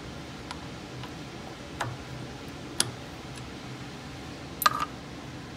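A few light clicks spaced about a second apart, with a sharper one near the middle and a quick double click near the end, over the steady noise of an air-conditioner fan.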